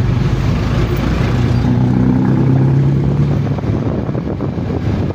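Motor vehicle engine running amid street traffic noise. A deeper engine note swells about a second and a half in and fades again about two seconds later.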